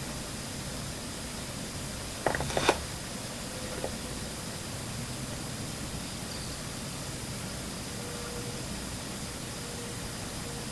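Steady hiss of a quiet room, broken about two seconds in by a quick cluster of two or three sharp knocks, with one faint tick about a second later.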